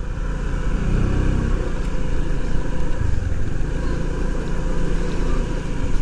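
Motorcycle engine running steadily at low revs.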